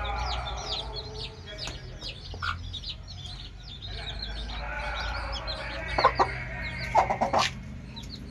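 Day-old aseel chicks peeping continuously, a rapid stream of short high falling peeps. Two louder, lower calls, likely from an adult chicken, break in near the end.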